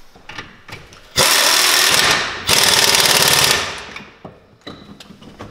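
Pneumatic impact wrench hammering on a front suspension bolt in two bursts of about a second each, after a few faint clicks of the tool being set on the bolt.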